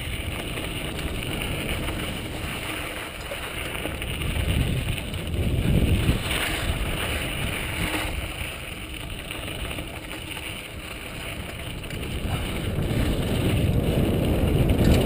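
Wind buffeting a helmet camera's microphone while a mountain bike rolls down a dirt singletrack, with tyre noise and a few short rattles from the bike over bumps around six and eight seconds in.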